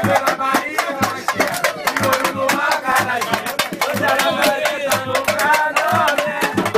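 A group singing Brazilian pagode, with hand percussion and clapping keeping a steady samba beat. A crowd is singing along in a packed train carriage.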